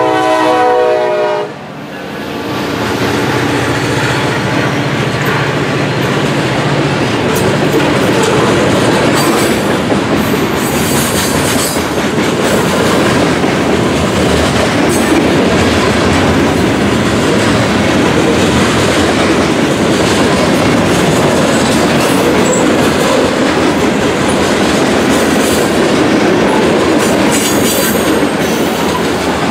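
CSX SD40-3 freight locomotive passing close by: its multi-note horn chord cuts off about a second and a half in, and the low hum of its EMD 16-cylinder two-stroke diesel goes by. Then a string of hopper and tank cars rolls past with steady wheel and rail clatter.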